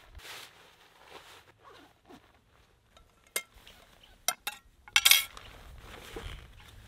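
Camp cookware being handled: a metal frying pan and gear give a few sharp clinks and knocks, the loudest a short burst about five seconds in, over soft rustling of clothing and gear.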